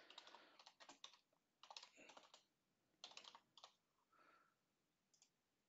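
Faint typing on a computer keyboard: several quick runs of keystrokes in the first three and a half seconds, then a couple of isolated clicks.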